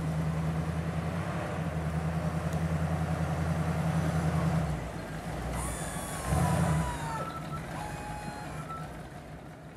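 A large road vehicle's engine running with a steady low hum, dropping off about five seconds in and surging briefly again, with thin high squeals in the second half.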